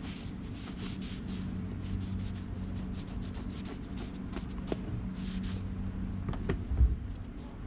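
Soldering iron tip rubbing and scraping over a plastic beach-cart tire in many short, irregular strokes, working melted plastic over a small hole, over a steady low hum. A single low thump comes near the end.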